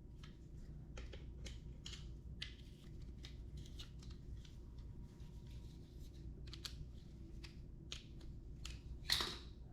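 Faint, irregular clicks and scrapes of hands and tools working a scooter tire onto its rim, with a short sharp hiss about nine seconds in.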